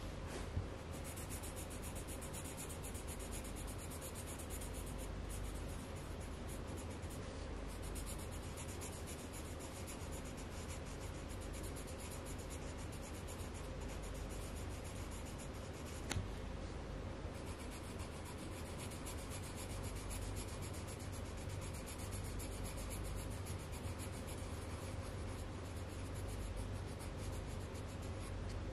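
Coloured pencil scratching on paper in rapid back-and-forth strokes as an area is filled in, with two short clicks, one about half a second in and one about sixteen seconds in.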